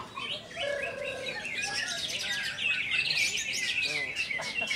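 Caged songbirds, among them a green leafbird (cucak ijo), singing a dense run of quick, varied chirps and trills that grows busier in the second half. A short low buzzing trill sounds about a second in.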